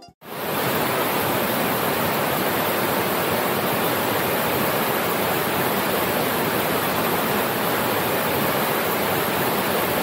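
Chamadka Falls, a cascading waterfall of muddy water over rock ledges, rushing steadily; the sound comes in a moment after the start and holds at an even level throughout.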